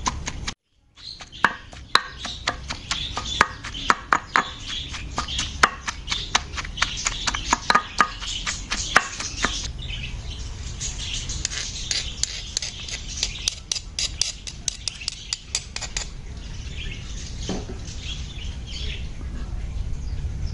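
Stone pestle pounding sliced red onions in a stone mortar: a quick run of sharp knocks, about three a second, that thins out after about 16 s. Birds chirp throughout.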